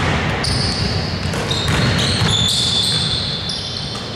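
Basketball game sounds on a hardwood gym floor: a ball bouncing and players' footsteps, with thin high sneaker squeaks coming and going, all carrying in the hall.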